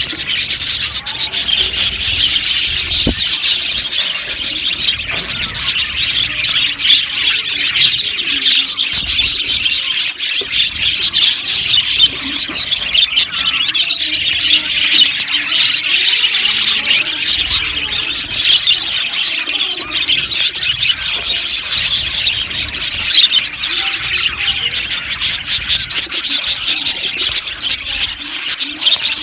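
A flock of budgerigars chattering and chirping all at once, a continuous dense twittering warble.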